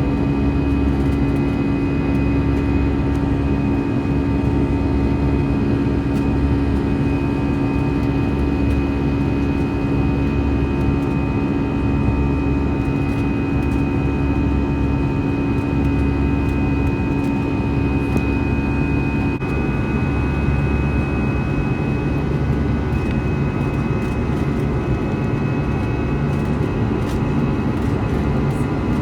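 Cabin drone of an Airbus A321's CFM56 jet engines running at steady power, a continuous rush with several steady tones. One low tone drops out about two-thirds of the way through.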